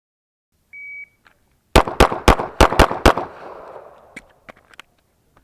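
A shot timer gives one short, steady high beep. About a second later a pistol fires six rapid shots in about a second and a half, each with a trailing echo, and a few faint clicks follow.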